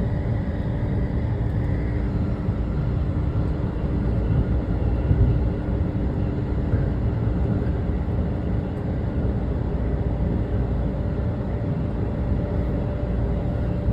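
Shonan-Shinjuku Line electric train running at speed: a steady rumble of wheels on rails with a constant hum over it.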